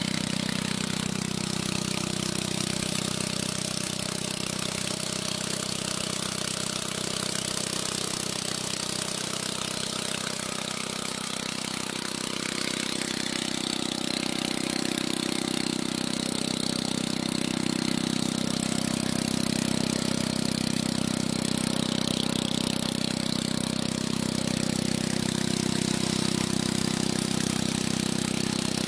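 Motorcycle engine converted to drive a water pump, running steadily under load. About twelve seconds in it grows a little louder and fuller.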